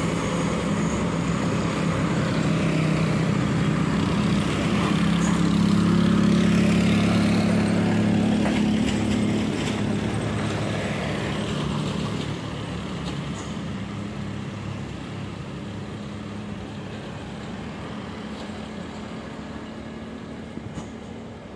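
Diesel dump truck engine running as the truck goes by on the hill climb, with a steady hum. It is loudest about six seconds in, then slowly fades away.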